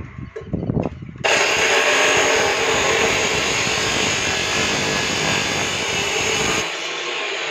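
HiKOKI abrasive cut-off (chop) saw grinding through a steel bar, the wheel biting into the metal about a second in with a loud, steady screech. The sound eases a little near the end.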